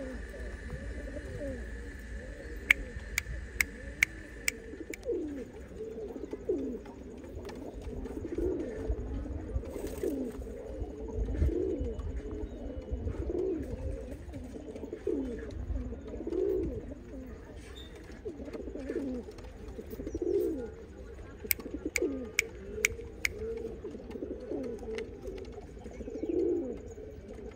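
Domestic pigeons cooing, one low coo after another. A few sharp clicks come in quick runs about three seconds in and again past the middle.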